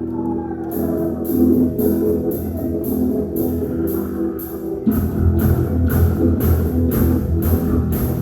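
Rock band playing. Evenly spaced cymbal strokes come in about a second in, and bass and full drum kit enter about five seconds in.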